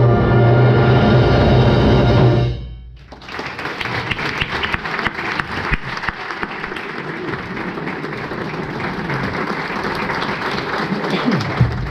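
A wind band holds a sustained closing chord that stops about two and a half seconds in; then the audience applauds, a dense steady clapping.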